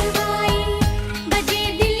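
Background music: an Indian film-style song, a sung melody over a steady beat.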